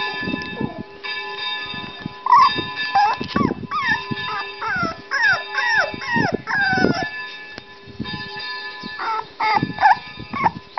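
Puppy whining and yelping in short, high cries that bend up and down, in a busy cluster from about two to seven seconds in and again near the end, over a steady background of several held tones.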